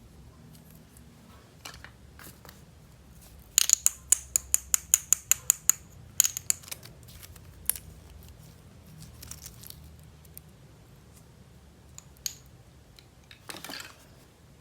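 Hands working toy packaging: a quick run of about a dozen sharp clicks over two seconds, then a few scattered clicks and a short rustle near the end.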